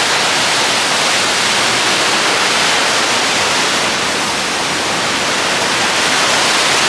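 Seven Falls waterfall: a loud, steady rush of falling water.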